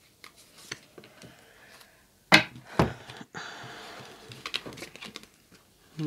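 A tarot deck handled by hand: cards shuffled with a run of light flicking clicks, then two cards slapped down onto the table about half a second apart a little over two seconds in, followed by a soft rustle of cards sliding.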